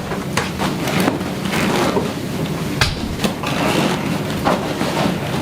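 A chiropractic table creaking and knocking as the patient turns face down on it, with a scatter of sharp clicks. The sharpest click comes about three seconds in.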